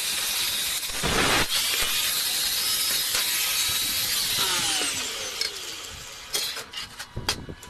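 Angle grinder with an abrasive cut-off wheel cutting through steel square tube. About four seconds in it is switched off and its whine falls away as the wheel spins down, and near the end a few sharp metal knocks follow as the steel pieces are handled.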